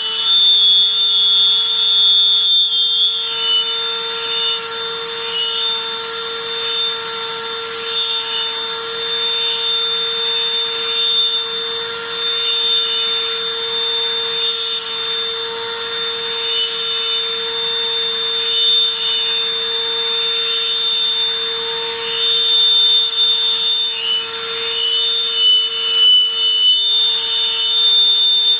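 Vacuum cleaner running steadily and very noisily, sucking sawdust up through a ribbed swimming-pool hose into a homemade bucket cyclone separator. The ribbed hose adds a high whistle that wavers in pitch and strength.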